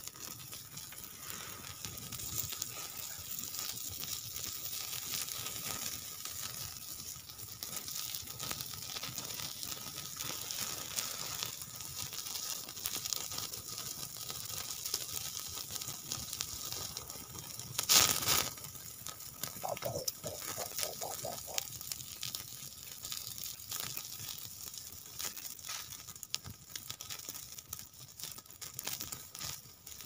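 Wood campfire crackling and hissing, with a steady stream of small pops. About eighteen seconds in there is one much louder crack.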